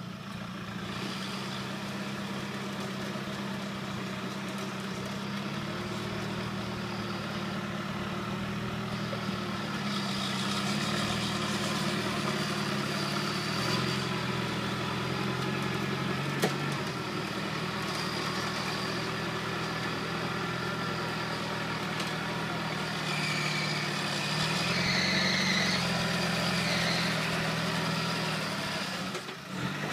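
Land Rover Discovery's diesel engine working at low revs as the 4x4 crawls through deep mud, the revs rising and easing back twice under load. A single sharp knock about halfway through.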